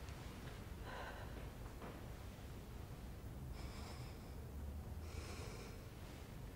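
A person breathing heavily: three faint, breathy breaths over a few seconds.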